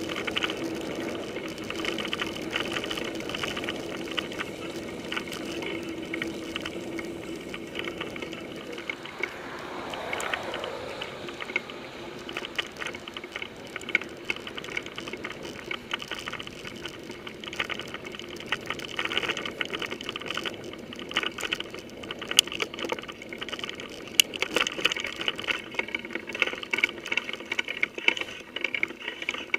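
Mountain bike rolling over wet dirt and gravel tracks, heard through a handlebar-mounted camera: a steady rush of tyre and wind noise, with rattling clicks and knocks from bumps that come more often in the second half.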